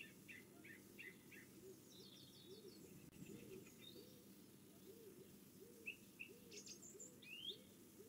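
Faint garden songbirds calling: a run of short chirps in the first second, a quick trill about two seconds in, and a few sharper high whistled notes near the end.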